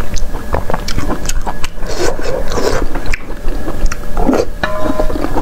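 Close-miked chewing and biting of food from a bowl of spicy soup, a run of irregular mouth clicks and smacks. A steady tone at two pitches comes in near the end.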